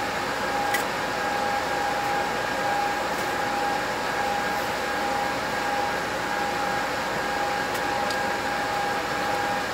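Steady whirring of a motor-driven fan with a constant whine, and a faint click about a second in.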